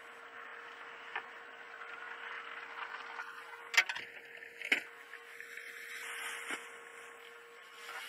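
Dashcam audio inside a stopped car: a steady hiss with a constant electrical hum, broken by two sharp clicks about four and five seconds in and a couple of fainter ticks.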